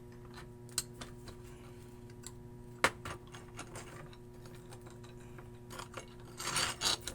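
Light metal clicks and knocks as a small metal plate and bolts are handled and fitted onto a wooden base, with a sharper knock about three seconds in and a short scraping rattle near the end, over a steady low hum.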